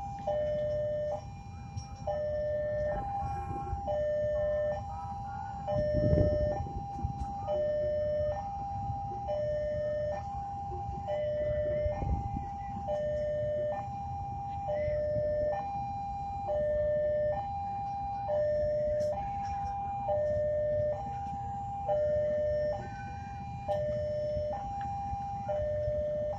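Railway level-crossing warning bell sounding an electronic two-tone alarm, alternating evenly between a higher and a lower tone about once a second. The alarm is going because a train is approaching. A brief low rumble breaks through about six seconds in.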